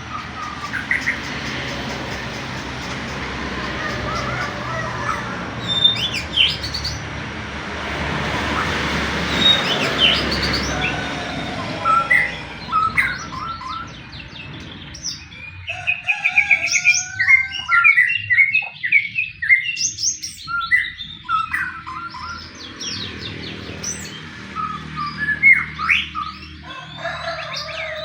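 White-rumped shama (murai batu) in fighting mood, singing rapid, varied phrases of whistles and chattering notes. A steady rushing noise lies under the first dozen seconds, then the song comes through clear.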